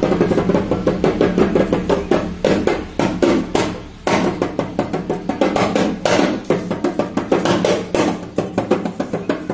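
Background music with a quick, steady percussive beat over held tones, dipping briefly about four seconds in.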